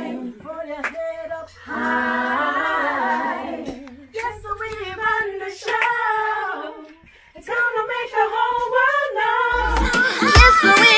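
A group of women singing a reggae song together without accompaniment, in sung phrases with short breaks between them. About nine and a half seconds in, the recorded track comes in, louder, with a heavy bass beat.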